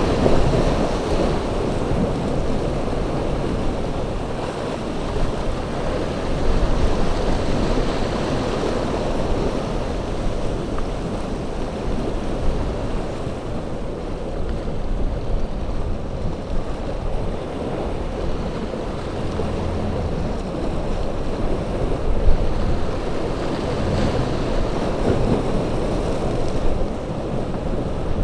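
Wind buffeting the microphone over rough surf breaking in an ocean inlet: a steady, dense rushing noise that swells and eases a little.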